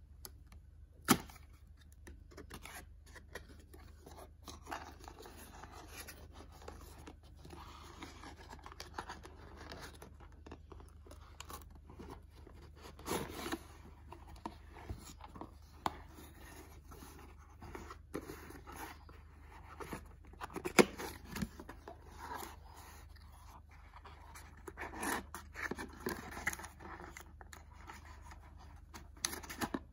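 Cardboard packaging being handled and opened: the flaps of a printed card box and an inner cardboard tray scraping, rubbing and tearing. Irregular sharp clicks and taps are scattered through, the loudest about a second in and about twenty-one seconds in.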